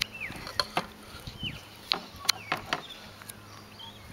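Scattered knocks and clicks as a bream is worked free of a mesh landing net on a plastic kayak. Short falling bird chirps sound several times in the background.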